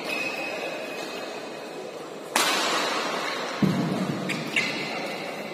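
Badminton doubles rally: rackets striking the shuttlecock and court shoes squeaking in short high-pitched lines on the court mat, with a sudden loud rush of noise about two seconds in.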